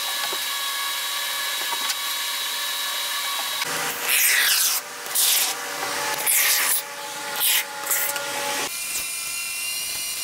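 Can of Loctite expanding foam sealant hissing in a string of short, uneven spurts about halfway through, over a steady high-pitched hum.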